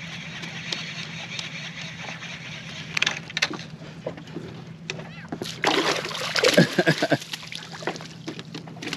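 Water splashing and sloshing beside the boat as a hooked fish is brought in at the surface, loudest about two-thirds of the way through, over a steady low hum.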